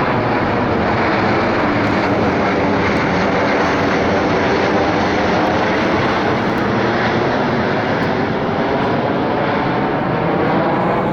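Jet engines of a Boeing 737 MAX 8 (CFM LEAP-1B turbofans) as the airliner passes close by. The noise is a loud, steady rush whose tones slowly shift as the aircraft moves.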